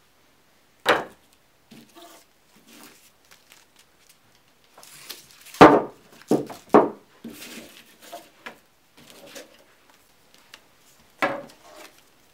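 Knocks and rustling as a taped-together bundle of Roman candles is handled on a wooden table: one sharp knock about a second in, a cluster of knocks and rustles around the middle, and another knock near the end.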